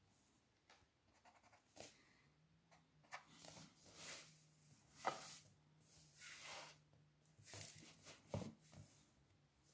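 Faint sounds of technical drawing: a plastic set square being slid and set down against a ruler on a drawing board, with a few sharp clicks and knocks, and short scratchy strokes of a pencil drawing lines along its edge.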